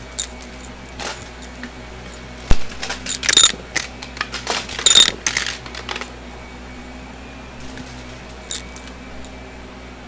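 Shark upright vacuum cleaner running over carpet with a steady hum. Bursts of sharp clicking and rattling come in clusters about 3 and 5 seconds in, with one hard pop about two and a half seconds in.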